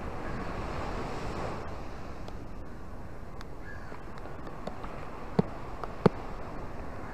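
Surf washing in on a sandy beach: a steady wash of water noise, with two sharp taps near the end.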